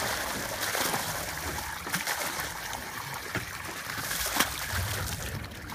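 Water gushing out of a corrugated plastic pipe into a lake as stocked fish are flushed out, a steady splashing with a few sharper splashes of fish hitting the surface, the loudest about four seconds in.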